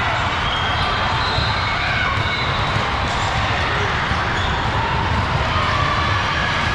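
Basketballs bouncing on hardwood courts amid the steady, echoing din of a large, crowded hall.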